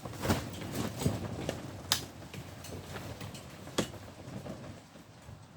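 Scattered clicks and knocks of handling as plugs are pulled and pushed at a crowded power socket, with the sharpest click about two seconds in.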